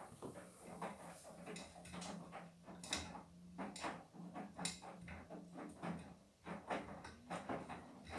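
Beko WTK104121W washing machine tumbling a wash load: a steady motor hum with irregular knocks and swishes as the laundry turns in the drum. The hum breaks off about five and a half seconds in.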